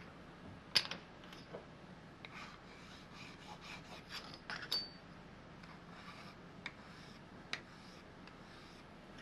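Faint scattered clicks and light scraping from metal parts and tools being handled, with the milling machine not running. One sharp click about a second in, a small cluster of clicks around the middle, and a couple more near the end.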